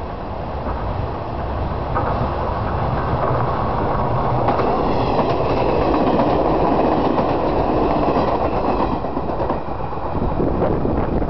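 JR Wakayama Line local electric train passing close by. It rumbles, and its wheels click over the rail joints. The sound builds to its loudest in the middle, with a faint high whine, then eases off near the end.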